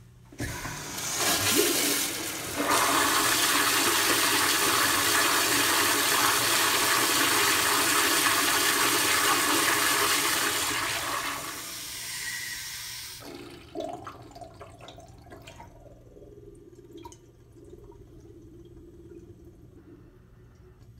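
Gerber toilet flushing: a loud rush of water through the bowl for about ten seconds that then fades out. A knock comes about two-thirds of the way in, followed by quieter running water that trails off.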